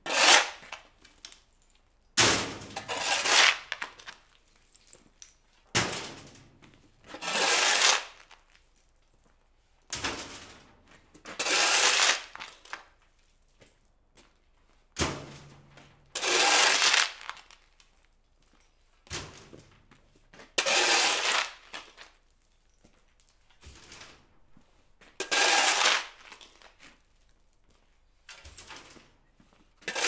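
Steel shovel scraping dirt off a concrete slab: a sharp clink of the blade on the concrete, then a longer gritty scrape, repeated about every four and a half seconds, seven times.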